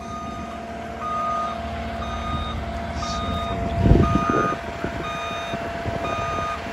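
Backup alarm of a tracked loader beeping about once a second over the machine's running engine, with a loud low burst of engine noise about four seconds in.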